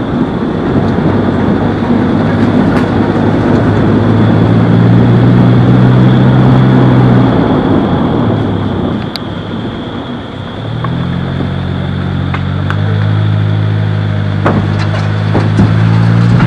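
Motor vehicle engine running under road noise. Its hum fades out around eight seconds in, dips lowest near ten seconds, and builds again from about eleven seconds.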